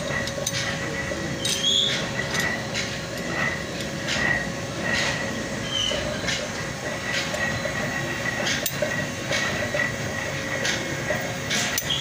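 Steel rollers clicking and clinking against the brass cage and steel rings as they are pressed one by one into a large double-row spherical roller bearing, irregular metal taps over a steady background hum.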